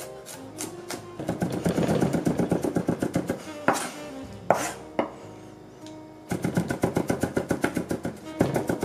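A kitchen knife mincing garlic on a cutting board: two runs of quick, even chopping strokes, several a second, with a pause in the middle. Background music plays underneath.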